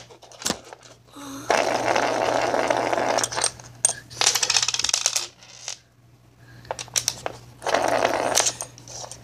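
Close handling noise from fidget spinner pieces being fiddled with: rustling, clicking and rattling in three bursts, the middle one a quick run of fine clicks.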